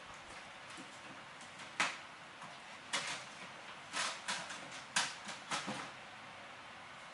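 A series of sharp clicks and knocks, several in close succession, from a padlock and small tools being handled while the lock is taken apart.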